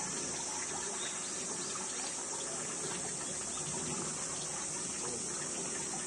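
Steady outdoor background hiss, even and unbroken, strongest high up, with no distinct sounds standing out from it.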